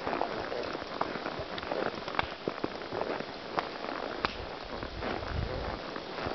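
Tennessee Walking Horse moving along a wooded trail, its hooves crunching dry leaf litter and twigs, with scattered sharp clicks and snaps over a continuous crackling rustle.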